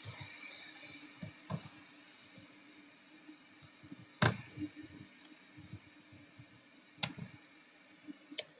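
Light clicks and ticks of a plastic pry tool working a MacBook Pro's glued-on logo bezel loose from the display, with three sharper clicks about four, seven and eight seconds in.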